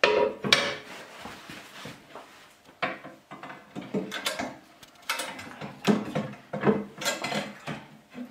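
Irregular metal clanks and knocks as a four-speed gearbox is shifted and seated onto its steel mount on the frame, some strikes ringing briefly.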